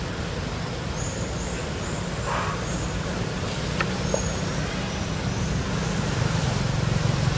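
Steady low outdoor rumble, with a short high chirp repeating about twice a second from about a second in.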